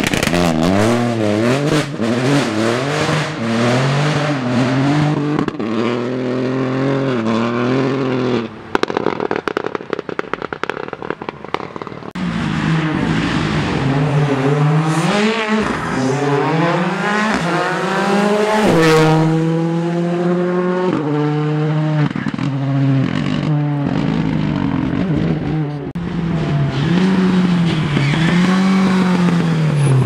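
Rally cars at full speed on a closed stage, one after another: engines revving hard up through the gears and dropping on each shift and lift-off. Around the ten-second mark the engine note drops away into a few seconds of crackling and popping before the next car comes through revving hard.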